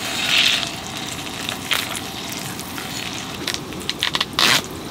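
Salmon steak laid into melted butter on a hot Petromax wrought-iron griddle: a loud sizzle as it hits the plate, settling into steady frying with scattered crackles and a few louder pops near the end.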